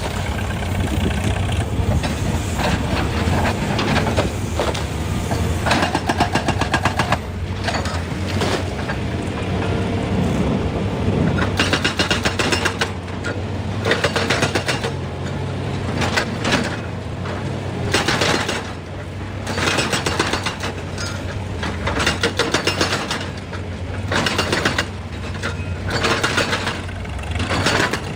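Excavator's diesel engine running steadily under load, with repeated spells of rattling clatter from the machine working.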